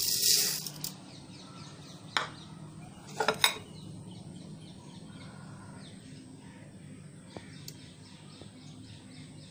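Low steady hum with a short rustling burst at the start, a sharp click about two seconds in and a brief call a little after three seconds, while faint birds chirp in the background.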